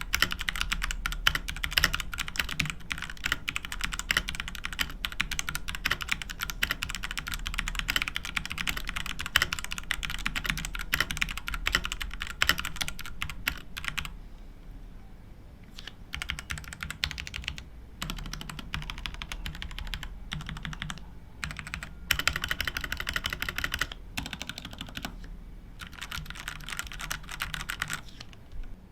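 Keyboard typing test: keys clicking in fast, continuous typing for about half the time. After that comes a brief lull, then bursts of typing broken by short pauses.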